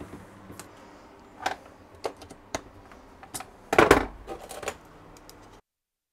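Scattered light clicks and knocks of hand tools and fittings being handled in a small wooden space, with a louder clatter about four seconds in. The sound cuts off suddenly near the end.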